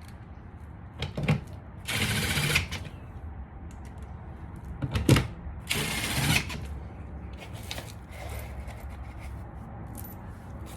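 Ratchet wrench clicking in two short bursts as bolts are driven, with a few sharp knocks of tool on metal between them.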